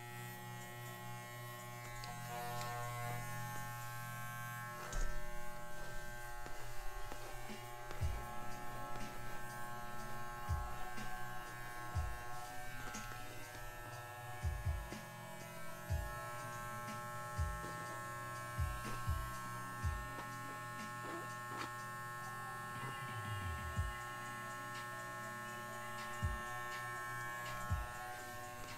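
Corded electric dog grooming clippers buzzing steadily while trimming a dog's coat, with short low knocks now and then as the clippers are handled.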